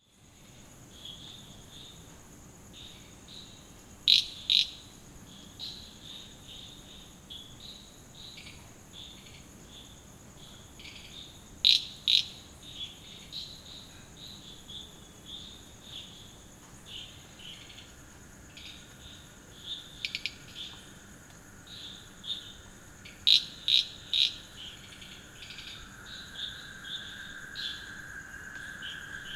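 Night chorus of crickets and frogs after rain: a steady high insect trill underneath, with frog calls coming in short bursts over it. Every several seconds a loud cluster of two to four sharp clicking calls stands out, and a lower steady trill swells in during the last part.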